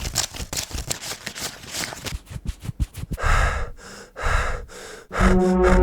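Home-made foley sound effects: a quick run of short taps and rustles, then three breathy gasps. Music with held low notes comes in about five seconds in.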